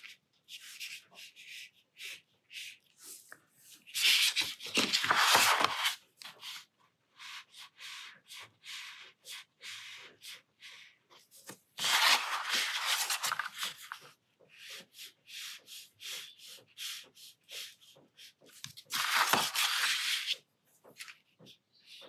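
A brush pen's felt tip scratching on watercolour paper in many short, repeated strokes, about two or three a second, as lines are drawn into leaf shapes. Three times there is a longer, louder rub, one of them as the sheet is slid round on the table.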